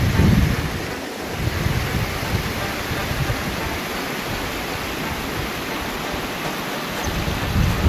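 Wind buffeting the microphone: a steady rushing noise, with low rumbling gusts at the start and again near the end.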